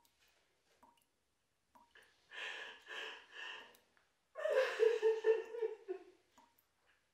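A person's breathy vocal sounds: three short breaths in quick succession, then a longer, louder wavering voiced sound.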